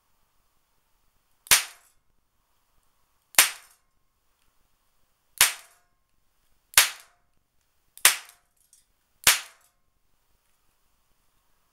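Six single shots from a Zoraki R1 revolver firing 4mm Flobert rounds. Each is a short, sharp crack, spaced unevenly about one and a half to two seconds apart.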